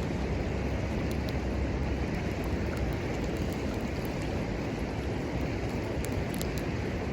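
Steady rushing of a river's flowing water, with faint, scattered sharp ticks over it.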